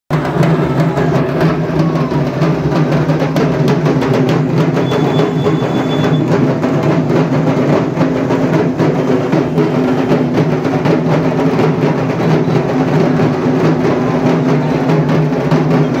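About a hundred dhaks, the Bengali barrel drums beaten with thin sticks, playing together in a loud, dense, unbroken roll of rapid strokes.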